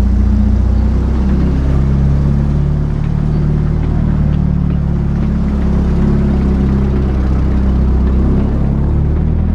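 M4 Sherman tank's engine running loud and steady under way, heard from on board the moving tank, its pitch shifting a little as the tank drives.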